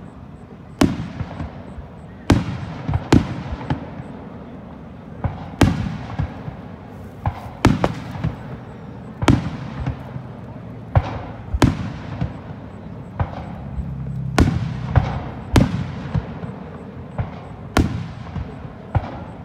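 Aerial firework shells bursting, one sharp boom about every second, each followed by a rolling echo. Finer crackling comes near the middle.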